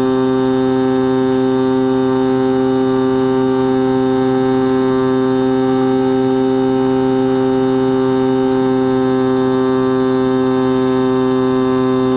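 X-8 FPV flying wing's motor and propeller running at steady throttle, a constant hum at one pitch picked up by the onboard camera, with rushing noise underneath.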